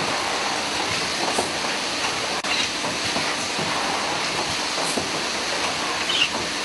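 Automatic syringe packaging machine with a pneumatic pick-and-place head, running with a steady hiss and clatter. A short, sharp hiss comes near the end.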